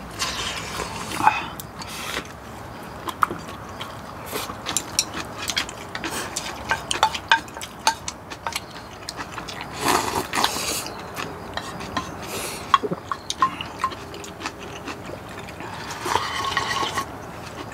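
Eating sounds: chopsticks and spoons clicking against bowls and dishes many times, with noisy slurps of soup sipped from bowls near the start, about ten seconds in, and near the end.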